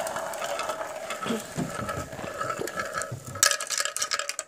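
Glass marbles rolling around a plastic funnel bowl of a toy marble run, a steady whirring rumble that fades, with scattered knocks and then a quick run of sharp clicks about three and a half seconds in as they drop through onto the plastic track.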